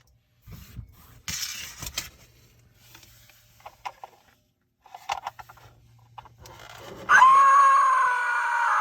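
Clicks and scrapes of the Goosebumps Haunted Mask door knocker being handled. About seven seconds in, its sound chip sets off a loud, pitched, wavering electronic sound effect through its small speaker.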